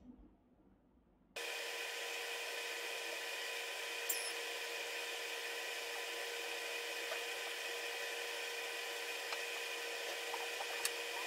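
Steady hiss with faint, even whining tones in it, starting suddenly about a second in after near silence. It is the recording's own background noise; no barking is heard. A few faint ticks sound over it.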